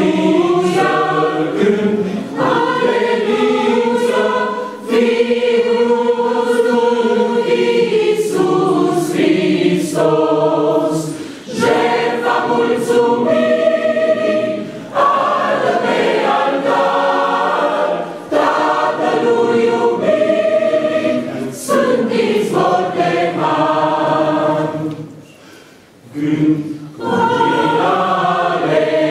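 Mixed choir of women's and men's voices singing a hymn in long sung phrases, with a short breath break near the end.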